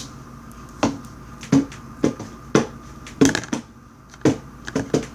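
Glass putty being squeezed and worked in the hands, giving a string of sharp, irregular pops and clicks, about two a second.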